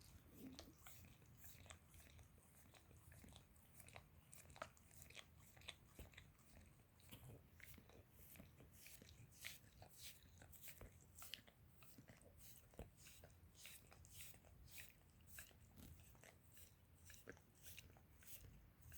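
Mixed-breed dog licking at very close range: faint, rapid wet smacking clicks of tongue and mouth, several a second and uneven.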